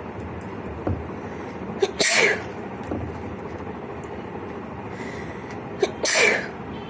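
A person sneezing twice, about four seconds apart. Each sneeze is a short sharp catch followed by a loud burst of about half a second.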